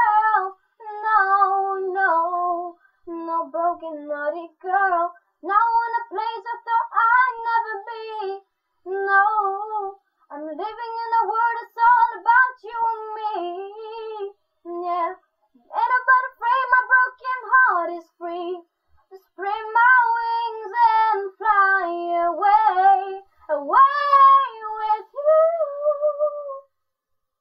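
A young girl singing a pop ballad unaccompanied, in phrases with short breaths between, ending on a held note about a second before the end.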